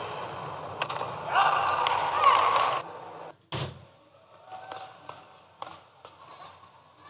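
Badminton rally: sharp clicks of rackets striking the shuttlecock over the background noise of a crowd in a large hall. About a second in, a louder stretch of shifting squeals lasts a second and a half. Then the sound cuts off abruptly, and the play goes on more quietly with a few more strikes.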